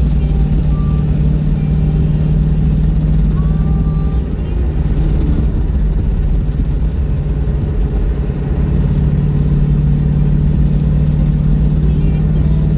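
Car being driven: a steady engine hum over low road rumble. The hum eases off about a third of the way in and comes back strongly near the two-thirds mark.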